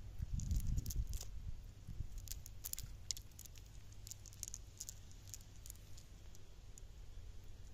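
Small lead sinkers on a fishing net clinking against each other as hands shake and pick through the mesh: a scatter of light, irregular clicks, thinning out after about five seconds, with a brief low rumble near the start.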